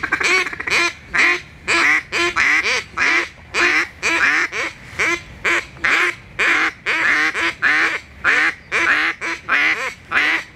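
Duck call blown by hand in a steady run of hen-mallard quacks, about two a second, to bring drakes in.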